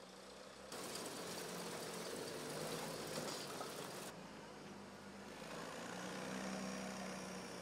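Diesel engine of heavy earth-moving machinery (a wheel loader or excavator) running steadily at low revs under a hiss of outdoor noise. The background jumps louder about a second in and shifts again about four seconds in.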